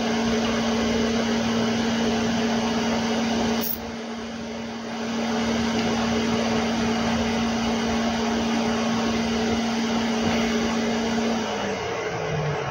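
Hot air rework station blowing: a steady rush of air over a motor hum. There is a sharp click about three and a half seconds in, and near the end the hum drops in pitch.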